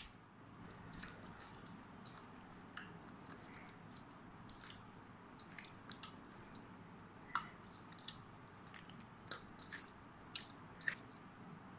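Hands squishing and kneading raw chicken drumsticks in a wet marinade in a stainless-steel bowl: faint wet squelching with scattered sharp clicks, a few louder ones in the second half.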